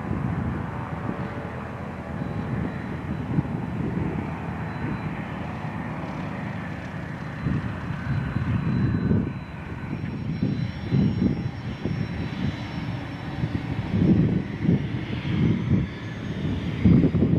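A fixed-wing airplane's engine running steadily, with a faint pitched drone in the first half. From about halfway on, wind gusts buffet the microphone.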